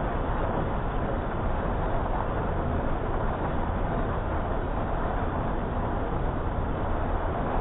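Combine harvester running steadily under load while harvesting corn: a dense, even machine noise with no pauses.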